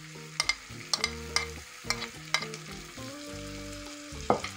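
Chopped capsicum and onions frying in butter and oil in an aluminium kadhai, with a steady sizzle. A metal spoon scrapes and taps against the plate and pan, giving several sharp clicks.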